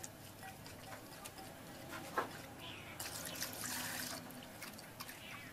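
Hands squishing and rubbing raw shrimp in a bowl with small wet clicks. About three seconds in, water is poured into the bowl for just over a second, then splashes as the shrimp are washed.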